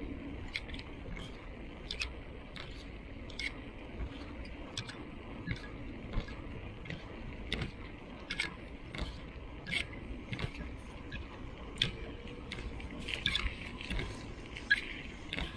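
Bicycle ridden over a rough concrete road: a steady low rumble from the tyres, with irregular clicks and rattles from the bike and its handlebar-mounted handheld radio.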